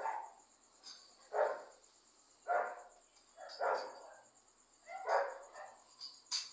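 A dog barking repeatedly, one short bark about every second, with a faint steady high chirring behind it and a sharp click near the end.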